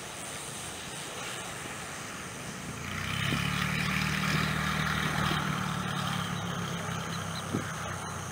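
Cessna 182's piston engine and propeller passing close by during a touch-and-go. A steady drone grows louder about three seconds in as the plane rolls past on the runway, then eases off near the end.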